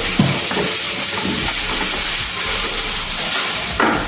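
Aluminium foil rustling and crinkling as a sheet is pulled and handled, a steady hiss.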